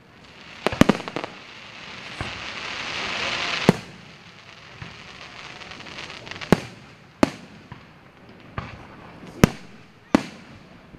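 Aerial fireworks shells bursting with sharp bangs: a quick cluster of three about a second in, then single bangs every second or so. A hiss swells for about two seconds before the bang near the middle.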